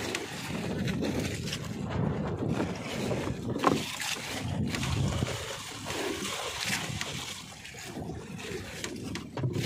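Wind rumbling on the microphone aboard a small wooden fishing boat, with light knocks from gear being handled and one sharper knock about three and a half seconds in.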